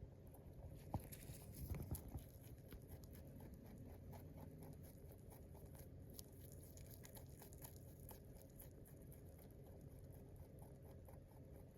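Rabbit softly grinding its teeth, a rapid run of faint fine clicks with a couple of louder taps near the start. This gentle tooth grinding is a rabbit's contented 'purring'.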